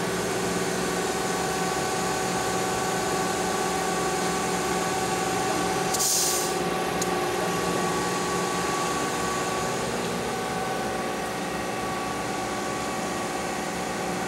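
SCHAUDT E450U1000 cylindrical grinder running, its motors and hydraulics giving a steady hum. About six seconds in comes a short burst of hiss.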